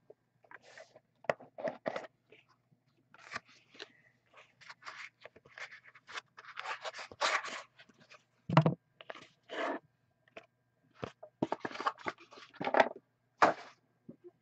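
Cardboard and plastic packaging of an Upper Deck The Cup hockey card box being handled and opened: scraping, crinkling and tearing in short, irregular bursts.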